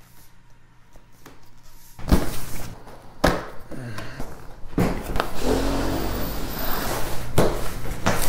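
Cardboard and paper packaging being handled: a few faint taps at first, then from about two seconds in loud rustling, scraping and knocks as a paper insert and the cardboard inner box are pulled out of the retail graphics-card box.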